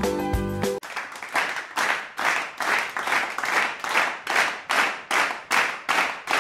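A music track stops abruptly just under a second in, and steady rhythmic hand clapping follows at a little over two claps a second.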